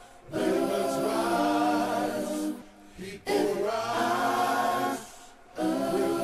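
Unaccompanied choir singing in long held phrases, with brief pauses between them.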